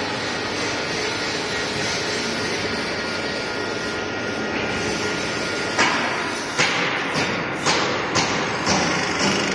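Aluminium-profile multi-head drilling machine running with a steady mechanical noise, then about six seconds in a run of sharp knocks, roughly two a second, to the end.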